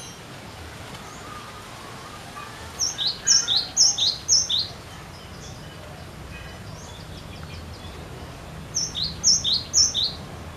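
Cinereous tit (glatik batu) singing its repeated two-note song, each a high note followed by a lower one: a phrase of four about three seconds in and a phrase of three near the end.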